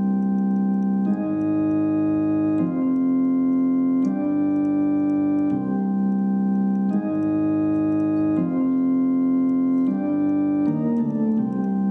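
Outro music: slow, sustained chords that change about every one and a half seconds, with a quicker run of notes near the end.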